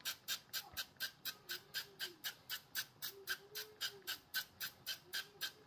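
Frylight cooking oil spray pumped over and over: a rapid run of short, even spritzes, about four a second.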